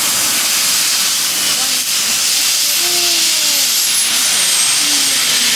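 Steam venting from a street vendor's black pressure-cooker drum as its lid lever is opened, a loud steady hiss with a faint high whistle sliding downward midway.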